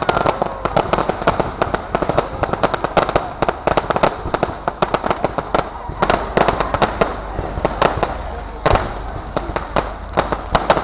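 Fireworks display: a rapid, uneven run of sharp pops and cracks, several a second, from ground-fired fountains and candles, with one louder bang late on.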